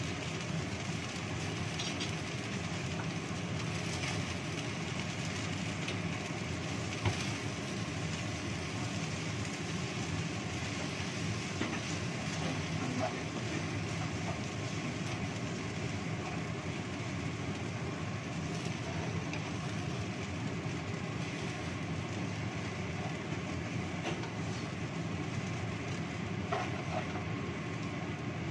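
Steady rushing noise of stir-frying over a gas burner, as a wooden spatula tosses rice vermicelli in a wok, with a few light knocks of the spatula against the pan.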